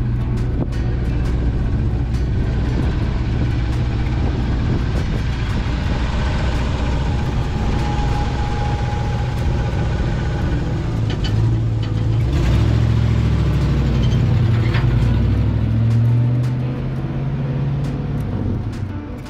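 1966 Ford F100's V8 engine idling with a steady low rumble. From about eleven seconds in it revs up and pulls away, then fades off near the end as the truck drives away.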